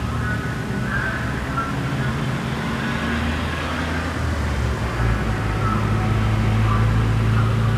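Road traffic: a motor vehicle's engine running, its low hum growing louder and steadier about five seconds in as it draws near.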